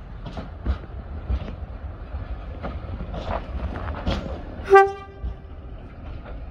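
Drewry railcar DP22 moving past the platform, its wheels knocking irregularly over the rail joints. Near the end comes a single short toot of its horn, the loudest sound, which fades within about a second.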